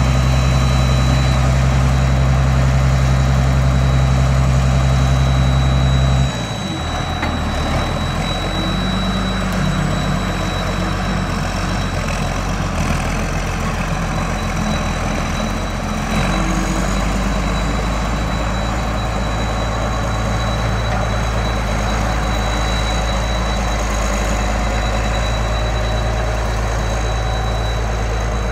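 Case IH Steiger 9330 four-wheel-drive tractor's diesel engine running steadily as it pulls a hay merger, with a thin steady high whine over it. About six seconds in, the low engine drone drops suddenly and settles into a slightly quieter, different note.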